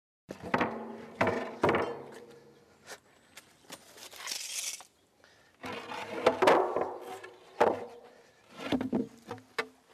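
Metal clanks and knocks, some ringing on briefly, with a short rasping burst about four seconds in, as the lid of an underground utility vault is unbolted with a cordless impact wrench and lifted off.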